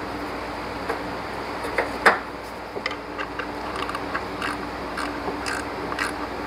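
Hand tools on metal: a single sharp knock about two seconds in, then a run of light ticks about four a second from a socket ratchet working a 10 mm bolt on the belt guard.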